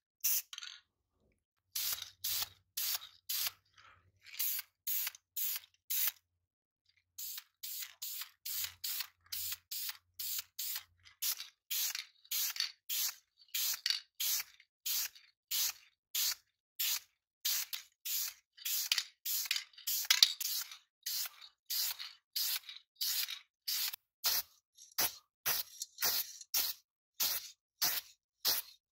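Spray paint hissing out in short, rapid bursts, about three a second, with a short pause at the start and another about six seconds in.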